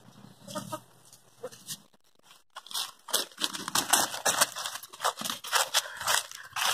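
Footsteps crunching over dry leaves and forest litter. The crunches come thick and fast from about two and a half seconds in.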